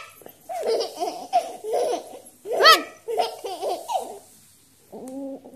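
Baby laughing in a run of short giggling bursts, with one loud high squeal of laughter about two and a half seconds in.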